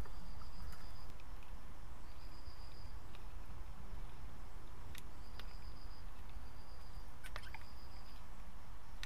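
A cricket chirping in repeated high trills, each lasting under a second, over a steady low hum. Two or three faint clicks.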